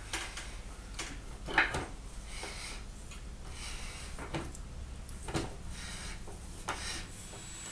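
Hand tap in a tap wrench being turned to cut threads into a drilled hole in a meranti hardwood vise arm: a string of short creaks and scrapes every second or so, the loudest about one and a half seconds in, over a low steady hum.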